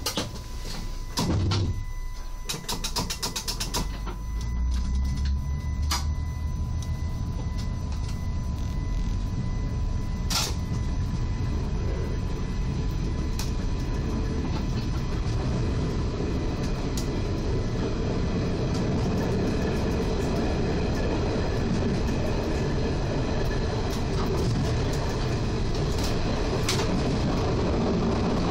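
SWEG NE 81 diesel train pulling away from a halt and accelerating, heard from the driving cab of its control car. A rapid burst of ticking comes a few seconds in, then the low running noise of wheels on rail builds and holds steady, with an occasional sharp click.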